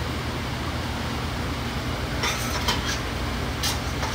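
Steady low hum of a commercial kitchen's gas range and ventilation, with a few short metallic scrapes and clinks of a whisk and pasta against a stainless steel mixing bowl, about two seconds in and again near the end.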